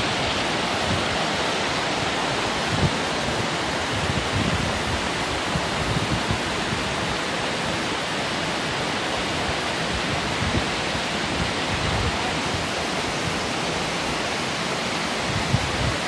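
Steady rush of a waterfall, water cascading over rocks.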